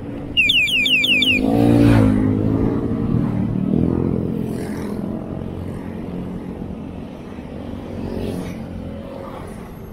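Oncoming motorcycles passing close by, their engine note swelling and bending in pitch as each goes past, the loudest about two seconds in, over steady wind and road rumble. Just before that comes a rapid run of five high, falling chirps.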